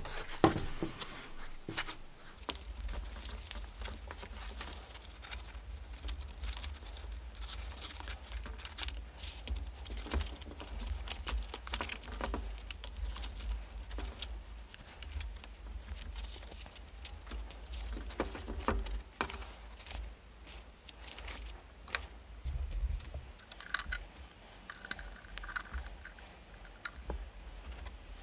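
Stiff leather helmet liner being handled and fitted into the metal headband ring: rustling leather with scattered light clicks and taps of the band, over a low steady hum that comes in about two seconds in.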